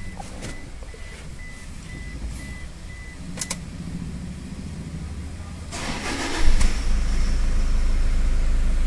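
A car's warning chime beeps steadily for the first few seconds, then there is a single click. Near the end a Toyota Fortuner's diesel engine cranks briefly, catches with a burst and settles straight into a steady, smooth idle after repair of its misfire and knocking.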